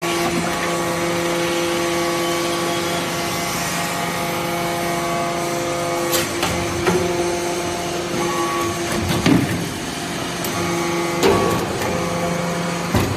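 Hydraulic metal-chip briquetting press running: the steady, pitched hum of its hydraulic power unit, with several sharp knocks in the second half as the ram cycles and a briquette is pushed out onto the bed.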